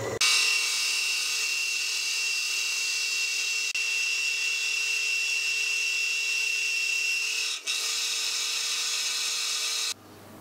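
Matsson Zetterlund VF600 milling machine cutting a cast iron part with an end mill: steady hissing cutting noise with a thin high whine. It breaks off for an instant twice and stops abruptly near the end.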